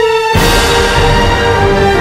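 Orchestral film-style score from a full orchestra: a single held note, then about a third of a second in the whole orchestra comes in at once and plays on with sustained chords.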